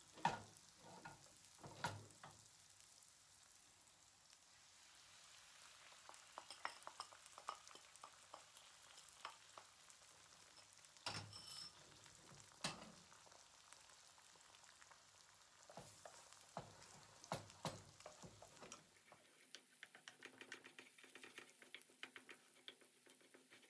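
Faint sizzling of beaten eggs frying in a pan beside stir-fried vegetables, with scattered taps and scrapes of a wooden spoon against the pan and a few louder knocks.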